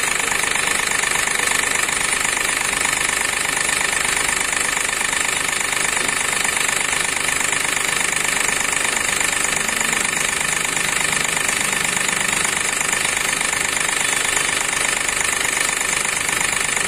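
Hyundai Xcent engine running at idle with a steady, rapid 'kat kat kat' knocking, a very dangerous noise. It runs with fault P0193, fuel rail pressure sensor circuit high input, from a rail pressure sensor wire cut by the broken intake manifold.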